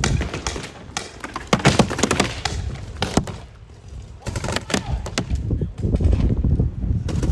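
Irregular sharp pops and knocks from paintball markers firing during play, over a low rumble of movement.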